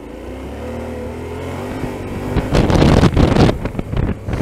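Yamaha Ténéré 700's parallel-twin engine running steadily at low revs. About two and a half seconds in, a loud rushing noise swamps it for about a second, then eases off.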